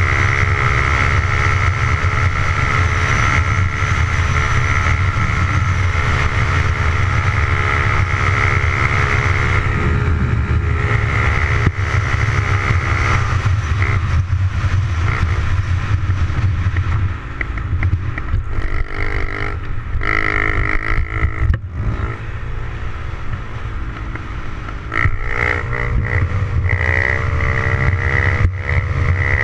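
Honda CRF70's small single-cylinder four-stroke engine running on the road at a steady speed, with heavy wind rumble on the microphone. From about 17 s in the engine note drops and breaks up as the throttle is eased off and on, and near the end it revs up and down again.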